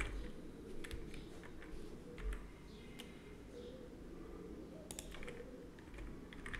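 Scattered clicks of a computer keyboard and mouse: single key presses a second or so apart, with a short cluster of clicks about five seconds in, over a faint steady hiss.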